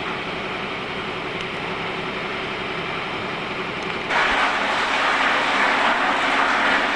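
Steady noise with a faint low hum, then about four seconds in a sudden, louder, even hiss from a large building fire burning.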